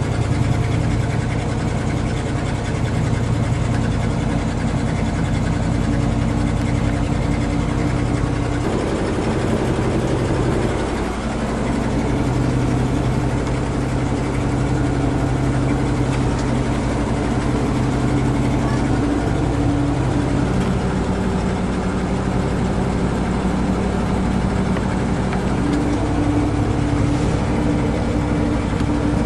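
1979 Dodge pickup's 318 V8 idling steadily on choke just after being started, heard from inside the cab. Its note shifts briefly about ten seconds in, then settles.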